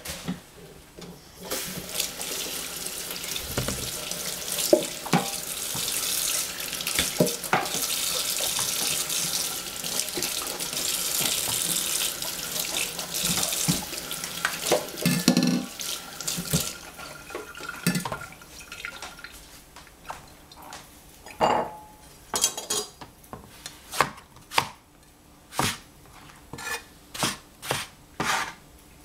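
A tap runs into a kitchen sink with occasional knocks for about the first half. After a few quieter seconds, a Chinese cleaver chops eggplant on a plastic cutting board in a series of sharp, separate strokes.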